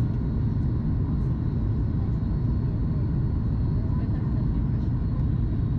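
Steady low cabin rumble of a Boeing 737 MAX 8 in flight, from airflow and engines, heard inside the passenger cabin.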